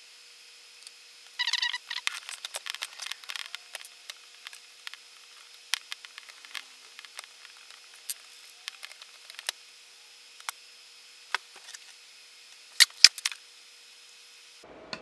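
Small clicks and taps of plastic quadcopter propeller parts and a small screwdriver being handled on a desk, with a quick run of rattling clicks about a second and a half in and two sharp clicks near the end.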